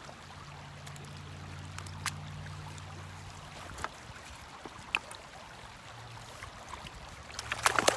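Shallow, fast creek water flowing and rippling steadily, with a few sharp clicks and a quick cluster of them near the end.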